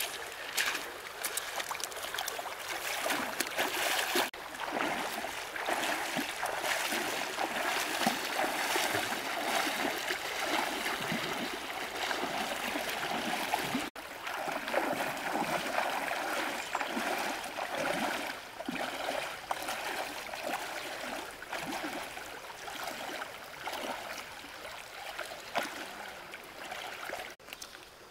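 Water running and splashing steadily, broken by brief sharp dropouts about 4, 14 and 27 seconds in.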